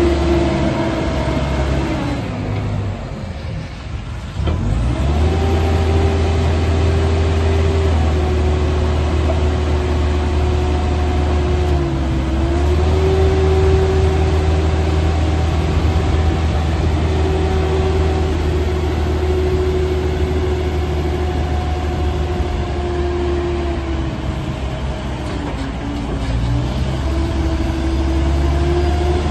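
Merlo P40.17 telehandler's diesel engine revved up and held at high revs with a steady whine while the boom is raised. The revs and whine drop a couple of seconds in, climb back about five seconds in, and sag and pick up again near the end.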